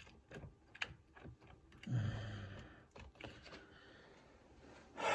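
Light clicks of switches being pressed and worked, with a brief low hum about two seconds in. The seat switch is probably dead.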